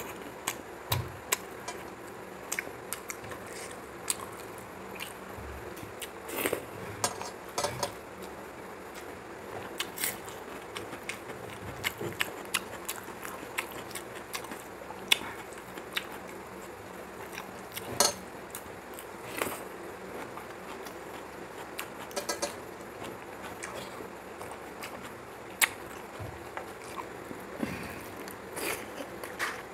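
Close-up eating sounds: a person chewing and mixing rice and curry by hand on a metal plate, with frequent short clicks and small crackles over a steady low hiss.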